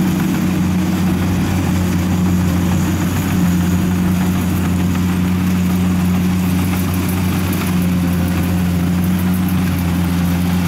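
Engine of a tracked rice-carrying machine (máy cộ lúa) running at a steady pitch as it hauls a full load of rice sacks.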